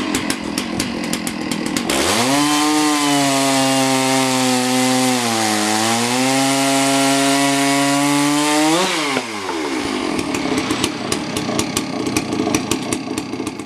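Two-stroke chainsaw ticking over at idle, revved to full throttle about two seconds in and held there for some seven seconds while cutting a piece off a log, its pitch sagging under the load midway. It drops back to idle near the end.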